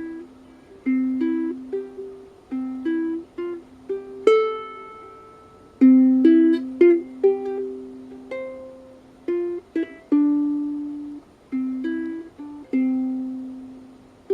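Soprano ukulele strummed in simple chords, playing the instrumental introduction to a slow country song; each strum rings out and fades.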